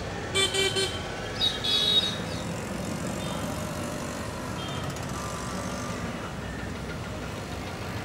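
Steady road traffic rumble with a vehicle horn tooting three short times in the first second, then a brief high-pitched gliding sound about a second and a half in.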